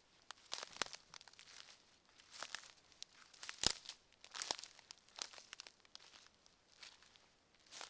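Footsteps of a person walking on a forest floor, one step about every second at an unhurried pace, each a short crunch. One sharper, louder step comes about three and a half seconds in.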